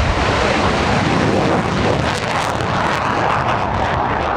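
Dassault Mirage 2000 jet fighter's single afterburning turbofan roaring loud and steady at full afterburner as it lifts off, with a sharp crackle from about two seconds in.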